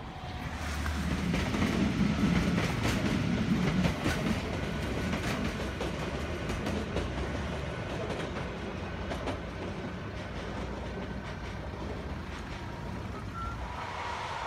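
A modern SNCF TER multiple unit passing, its wheels clicking over the rail joints, with a faint steady whine. The sound builds over the first two seconds, is loudest for a couple of seconds, then fades slowly.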